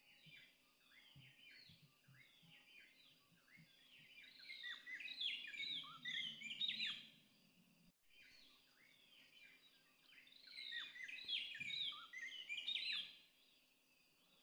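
Bird song: a chatter of quick chirps and downward-sliding whistled notes that grows louder, breaks off sharply about eight seconds in, then starts again and grows loud once more before fading near the end. A faint steady high insect whine sits underneath.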